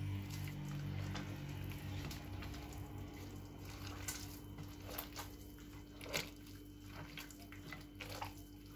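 A hand squeezing and mixing soft, oily dough of butter, eggs and oil in a glazed clay bowl: quiet wet squelching with a few sharp clicks. A low hum dies away about two seconds in.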